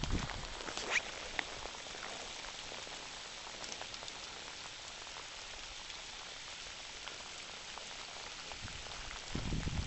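Steady rain falling on fallen leaves and a gravel track: an even hiss with scattered sharp drop ticks, the clearest about a second in. A few low thumps come near the end.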